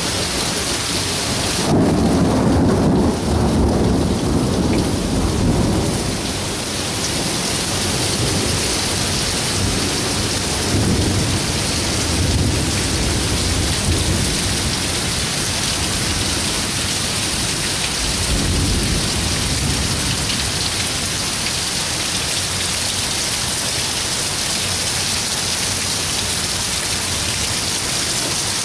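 Heavy rain pouring down steadily in a thunderstorm. A rumble of thunder swells about two seconds in and lasts several seconds, with fainter rumbles later on.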